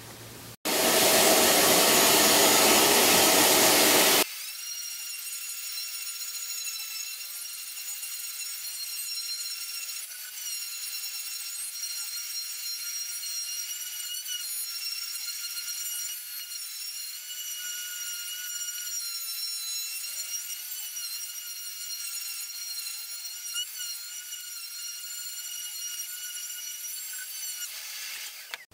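Oscillating multi-tool sander with a triangular pad and 400-grit paper sanding the epoxy hot coat of a surfboard, with a shop vacuum drawing off the dust. It starts as a loud rushing noise for about four seconds, then switches abruptly to a steady high whine with overtones that wavers slightly as the pad is worked over the board.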